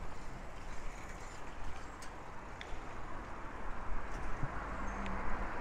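Street ambience heard from a moving bicycle: a steady rush of road and traffic noise with a few light clicks and knocks.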